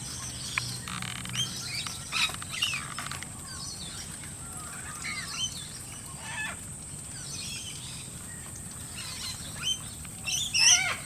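Mixed flock of wild Australian birds chirping and calling: many short, sweeping calls at irregular intervals, with a loud burst of descending calls near the end.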